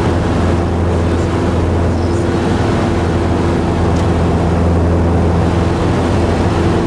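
Light aircraft's engine and propeller droning steadily in cruise, heard from inside the cabin: a constant low hum.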